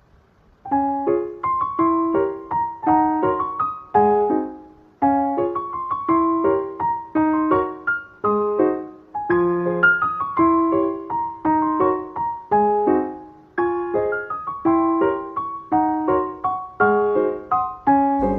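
Piano music: a steady melody of evenly spaced notes that starts about a second in.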